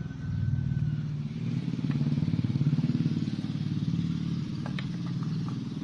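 An engine running steadily with a fast, even low chug, with a few short sharp knocks near the end.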